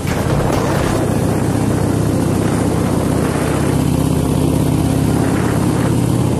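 Motorcycle engine running steadily while the bike is under way, a constant low drone.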